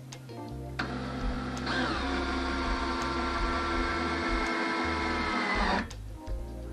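Cordless drill with a step drill bit boring through the plastic wall of a water tank. The motor whines under load from about a second in, its pitch sagging slightly, then stops sharply near the end.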